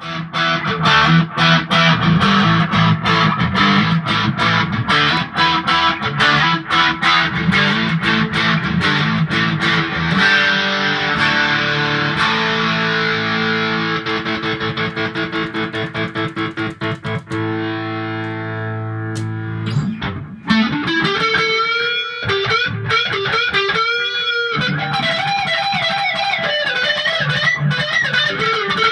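Heritage H155 electric guitar played through an amplifier: a fast picked riff, then held chords from about ten seconds in, then bent notes with wide vibrato in the last third.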